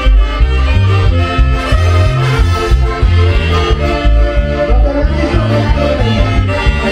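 Latin dance music with accordion over a heavy, steady bass beat.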